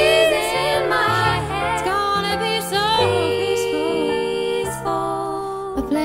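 Background music from a gentle song: a wavering melody over steady, slowly changing low notes.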